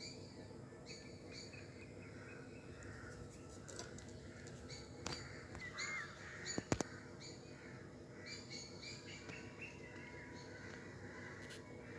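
Birds chirping: short, high, repeated calls over a steady low hum, with a couple of sharp clicks about halfway through.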